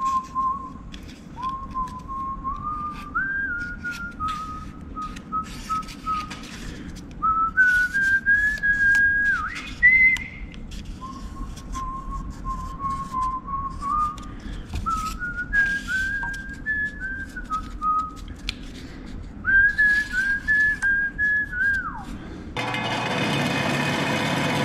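A person whistling a tune, the notes stepping up and down in short phrases, over scattered light clicks and knocks of handling tools and parts. Near the end the whistling stops and a louder, steady machine noise cuts in.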